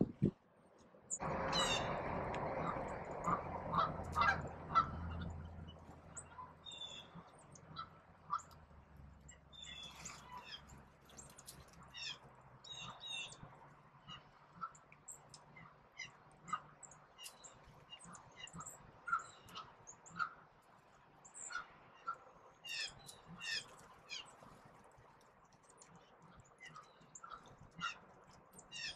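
Small songbirds chirping and chipping at feeders: short, sharp, high calls, scattered and repeated throughout, some in quick falling runs. Just after the start a louder rushing noise with a low hum sets in and fades away by about eight seconds.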